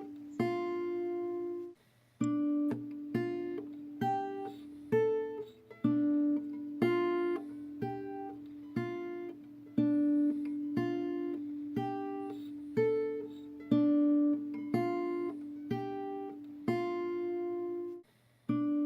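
Background music: acoustic guitar picking single notes, about one a second, over a held low note, with two brief pauses.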